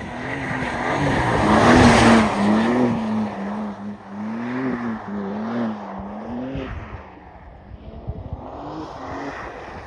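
BMW M3 (G80) twin-turbo inline-six drifting past on a snowy road, its revs rising and falling again and again as the throttle is worked. It is loudest as it passes about two seconds in, with a hiss of tyres through snow and slush, then fades as the car slides away.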